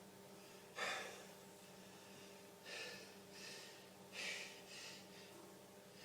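A man's short, sharp breaths, about six in a row, the loudest about a second in and another strong one about four seconds in. They are the catching breaths of a sneeze coming on.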